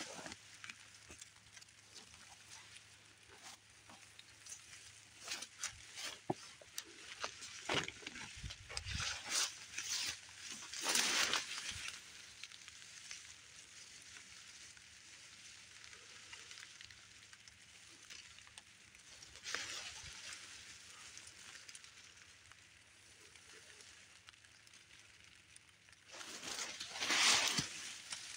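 Leafy berry bushes rustling as they are pushed through and brushed aside, with scattered crackling and clicking of stems. Two louder rustling sweeps come about 11 seconds in and near the end.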